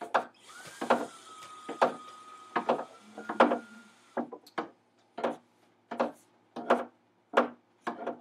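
Hammer blows on wood, a regular knock about every two-thirds of a second. A faint hiss and a thin steady tone run under the first half.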